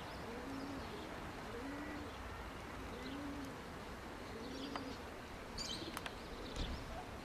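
Domestic pigeon cooing: a low coo that rises and falls, repeated about every second and a half. A few high bird chirps come near the end.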